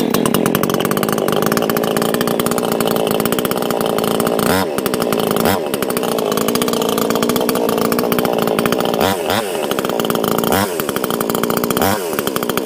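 Proyama two-stroke gasoline chainsaw running at idle just after a cold start, with fast, even firing. The engine note briefly swings several times, about four and a half and five and a half seconds in and again a few times later.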